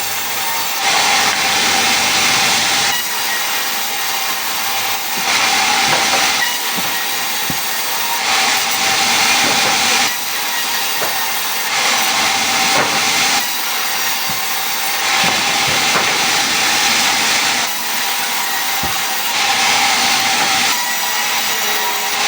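A power woodworking machine running steadily while cutting wood, its hissing cutting noise swelling and easing in passes of about two seconds each.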